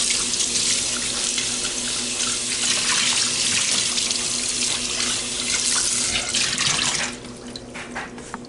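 Kitchen tap running into a stainless steel sink as a small stainless steel saucepan is rinsed under the stream; the water drops off sharply about seven seconds in, leaving a few light knocks of the pan.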